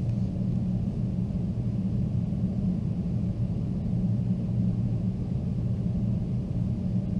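Steady low rumble of background room noise, even throughout, with no clear events.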